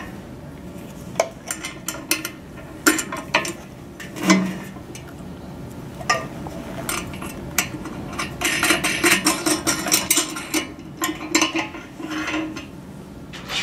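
Small metal parts clinking and clicking as a washer and nut are fitted onto a threaded steel U-bolt on a metal pole bracket. Scattered single clicks, with a busier stretch of clinking a little past the middle.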